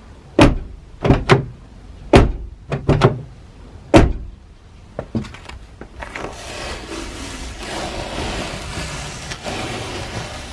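About seven sharp knocks and thuds in the first four seconds, two fainter ones a second later, then a steady hiss.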